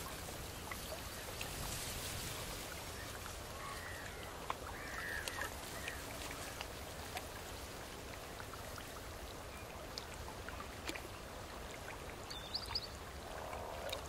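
Nature ambience of softly trickling, lapping water with many small drips and splashes, and a few brief bird calls scattered through it.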